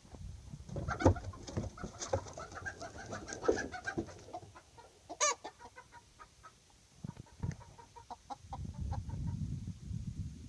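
Polish crested chicken crowing: one long crow starting about a second in and lasting some three seconds, then a short sharp call and a few brief calls. The bird was kept as a hen, but its crowing suggests that it is a rooster.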